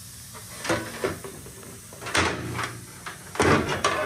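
Sheet-metal cover of a walk-in cooler's evaporator being handled and swung aside, giving a few short metal rattles and knocks, the loudest about three and a half seconds in.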